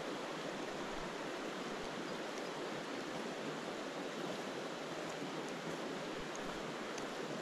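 Shallow river running over stones, a steady rushing of water.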